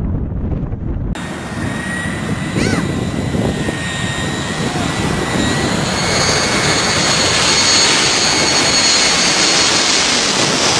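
Boeing 747's four jet engines whining over a loud rush as the airliner comes in low on final approach overhead, growing louder over the last few seconds. The first second is wind buffeting the microphone, ending abruptly.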